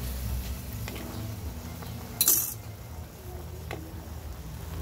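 Metal cookware clinking: a fork and the pan lid knocking against a stainless pan, with faint clicks and one short, louder clatter a little over two seconds in, over a low steady hum.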